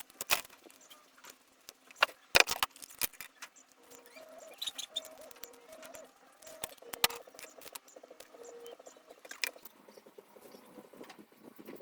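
Scattered sharp clicks and light knocks of hand work on wooden speaker parts, irregular, with the loudest cluster about two and a half seconds in.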